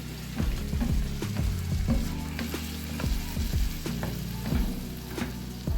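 Seafood and sauce sizzling in a frying pan while being stirred, with frequent short knocks and scrapes of a utensil against the pan.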